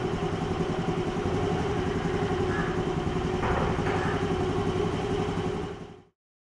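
Honda scooter's small engine idling steadily, fading out near the end.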